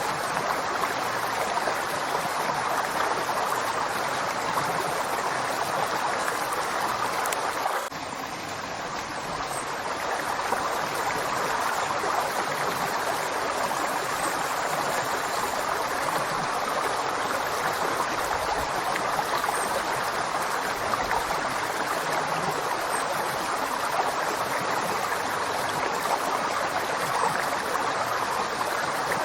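River water flowing, a steady rushing. About eight seconds in it drops slightly and suddenly, then builds back over a couple of seconds.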